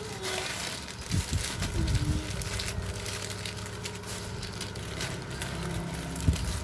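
Plastic parcel packaging crinkling and crackling as it is handled, with a few soft knocks, over a steady low hum.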